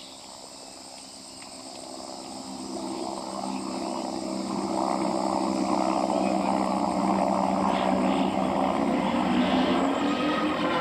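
Propeller aircraft engine droning and growing steadily louder as it approaches, with a pitch bend near the end as it passes. Insects buzz faintly at the start.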